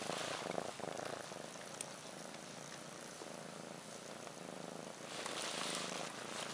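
Kitten purring steadily, with a louder noise for about a second near the end.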